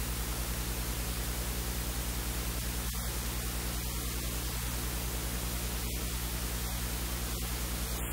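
Steady loud hiss with a mains hum buzz underneath: electrical noise on the recording, with nothing else standing out.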